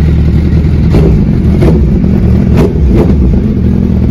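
Suzuki Hayabusa's inline-four engine running on its stand through a Yoshimura exhaust, held at idle to light throttle with a steady, deep, loud exhaust note.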